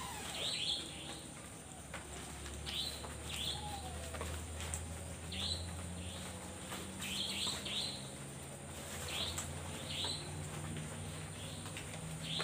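Repeated short, high chirping calls of a night animal in the forest, coming in little clusters of falling notes about every one to two seconds, over a steady high-pitched hum.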